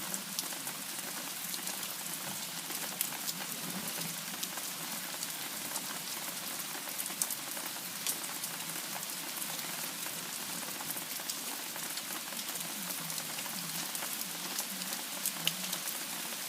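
Steady rain from a thunderstorm falling, with many individual drops ticking sharply close by.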